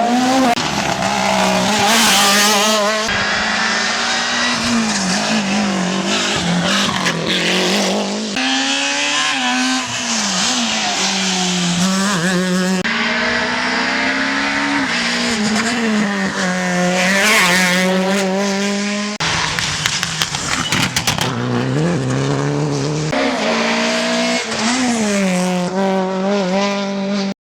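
Rally car engines revving hard, the pitch climbing and dropping through gear changes as the cars pass. Several abrupt cuts jump from one car to the next.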